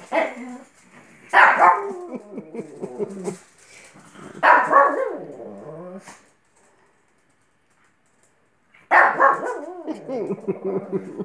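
Shih tzu puppy barking in play, in four bouts of barks with growly, drawn-out tails, the longest lasting about two seconds. A quiet gap of about two seconds comes before the last bout.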